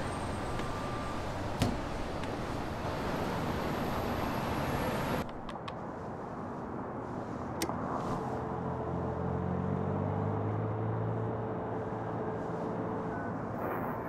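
City street traffic ambience of passing cars, from a designed film soundtrack. About five seconds in, the high end cuts away abruptly and the street turns muffled and dull. A couple of sharp clicks stand out, and a low engine-like hum with a steady tone sets in for several seconds in the second half.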